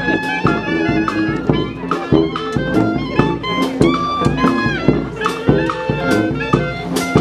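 A live street band playing an upbeat tune: horns and reeds over a steady drum beat.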